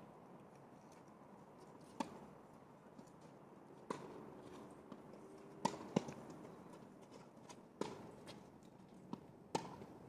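Faint tennis rally: sharp pops of the ball off the rackets and court, coming roughly every two seconds.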